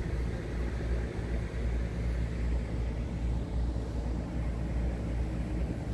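Scania R tractor unit's diesel engine idling steadily, an even low-pitched running sound.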